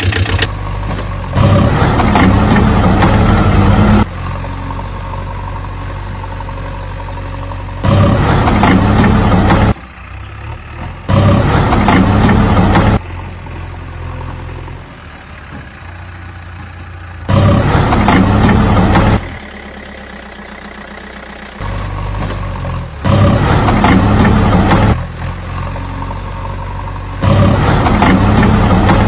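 Vehicle engine sound running at a steady idle and rising into loud spells of about two seconds, six times.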